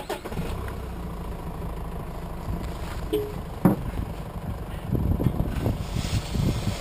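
Mitsubishi Triton pickup's engine idling steadily, kept running so the brakes hold while the back wheels are jacked up. A single sharp knock about three and a half seconds in.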